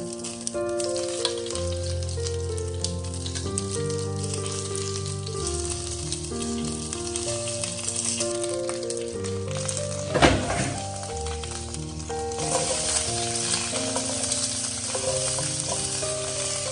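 Food frying in hot oil in a pan for a potato curry, a steady sizzle that flares with a sudden loud crackle about ten seconds in and stays louder from about twelve seconds. Soft piano background music plays over it.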